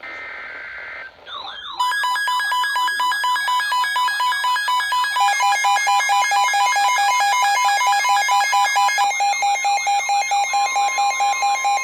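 Emergency Alert System activation: a short burst of header data tones, then a loud warbling siren-like alert tone over steady attention tones. A second steady tone joins about five seconds in, and the loudness pulses several times a second.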